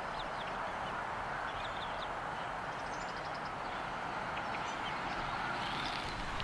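Faint, short high-pitched bird chirps scattered over a steady hiss, with a brief rapid trill about three seconds in.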